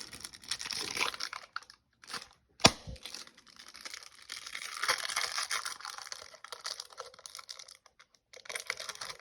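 Plastic foil wrapper of a Magic: The Gathering collector booster pack being torn open and handled, a dry rustling crinkle that comes and goes, with one sharp tap about two and a half seconds in.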